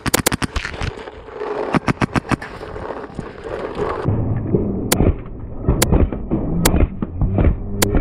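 Paintball markers firing: a quick string of shots right at the start and another about two seconds in, then, after a change about four seconds in, single shots about once a second over low knocking and rustling close to the microphone.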